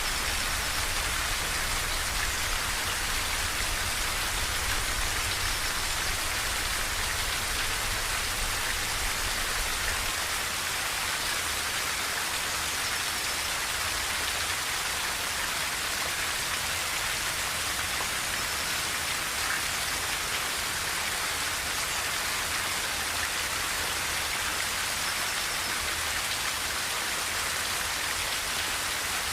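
Steady rain falling on a tin roof, an even, unbroken patter of drops.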